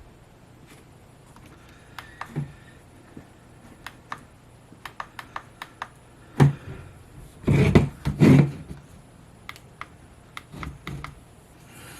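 Hard objects being handled on a bench: scattered light clicks and taps, a sharp knock about six and a half seconds in, then a louder clatter for about a second.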